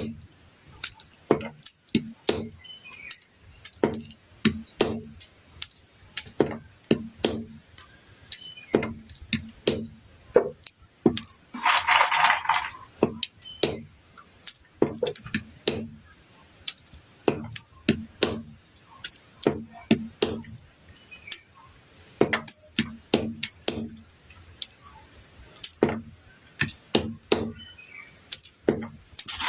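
A knife chopping Chinese olives on a board: a steady series of sharp chops, about one to two a second, with a brief noisy burst near the middle.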